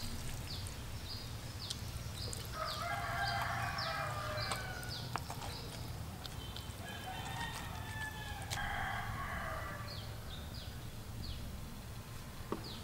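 A rooster crowing twice, each crow about two seconds long, over a series of short, high, falling chirps repeated every half second or so.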